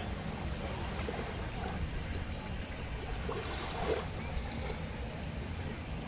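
Small sea waves lapping and washing up over a sandy shore, a steady wash of water with a slightly louder splash about four seconds in.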